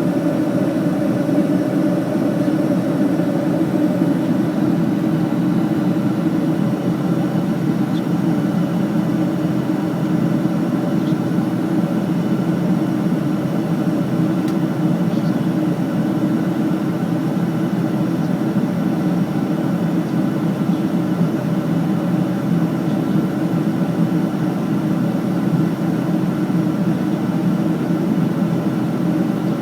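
Steady cabin noise of an airliner in flight: a constant low rush of airflow and engine drone with a few faint steady tones, unchanging throughout.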